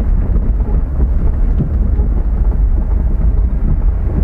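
Vehicle driving over a gravel dirt track: a steady, loud low rumble of engine and tyres, with wind buffeting the microphone.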